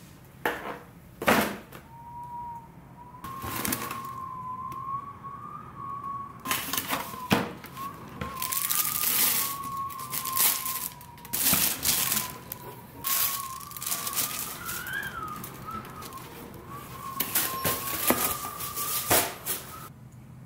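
Tissue paper crinkling and a cardboard shoebox being handled as new sneakers are unwrapped, in a run of short rustling bursts. Behind it a thin, wavering high tone holds from about two seconds in until just before the end.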